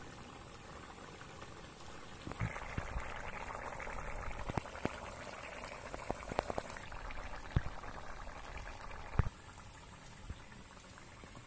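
Small-fish and brinjal curry boiling hard in a black iron wok over a wood fire: dense bubbling with frequent pops. It starts about two seconds in and cuts off suddenly about nine seconds in.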